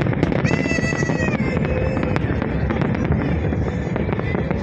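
Fireworks display: a dense, continuous crackle of small bursts over a steady low rumble. A high whistling tone sounds for about a second, starting half a second in.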